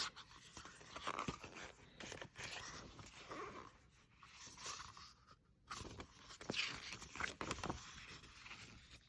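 Paper rustling and scraping as the pages of an album photo book are handled and turned, in uneven bursts with a few sharp clicks.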